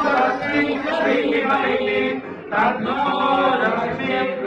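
Several voices chanting a Hindu prayer together in unison, in long, held sung tones, with a short break for breath a little past two seconds in.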